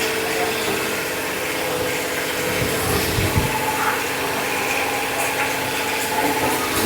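Steady hum of tyre-shop machinery running, with a few dull knocks about three seconds in.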